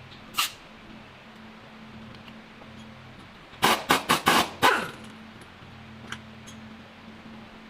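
A dog barking in a quick run of about five barks around the middle, with a single sharp sound about half a second in, over a steady low hum.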